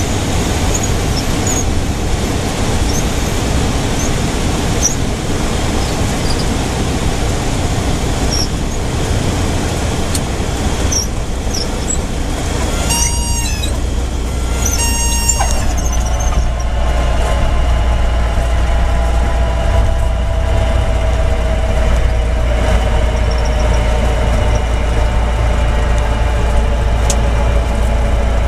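Cabin noise of a small single-engine plane landing: the steady drone of engine and airflow, two short squeals about halfway through, then a steady whine over a louder low rumble.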